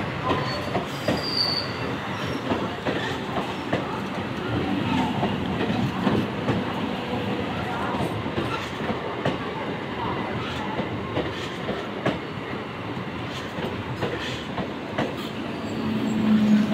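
EMU local train coaches rolling slowly past close by, the wheels clicking over the rail joints, with a brief high wheel squeal about a second in. Near the end a low steady hum grows louder as the next coach comes by.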